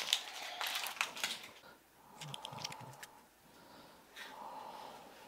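Quiet clicks and taps of small plastic toy packaging being handled by hand, a cluster in the first second and a half, then a few softer ones around two to three seconds in.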